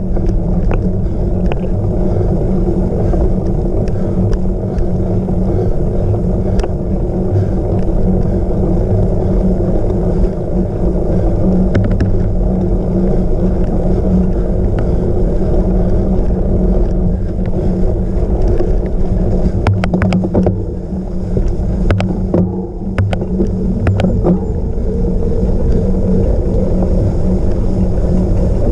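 Steady rushing wind on the microphone and rolling noise of a cyclocross bike ridden at speed over rough ground, with scattered knocks and rattles from bumps, bunched together about two-thirds of the way through.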